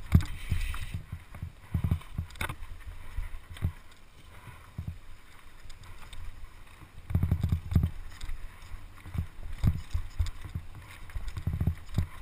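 Mountain bike descending a wet, rough dirt trail: irregular knocks, thumps and rattles from the tyres, suspension and frame hitting bumps, over a steady rumble, busier from about seven seconds in.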